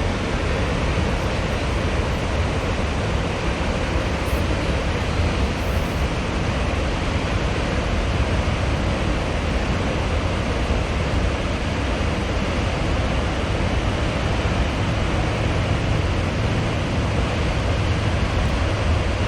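Steady, unbroken rush of water from Snoqualmie Falls, a 268-foot waterfall, with a strong low rumble underneath.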